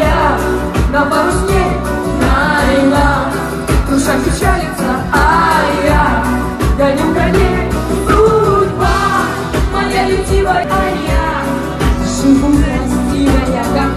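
Woman singing karaoke into a microphone over a loud pop backing track with a heavy bass beat.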